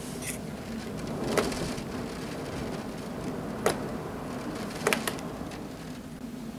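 Steady rain falling in a thunderstorm, an even hiss over a low steady hum, with three sharp taps close to the microphone about a second and a half, three and a half and five seconds in.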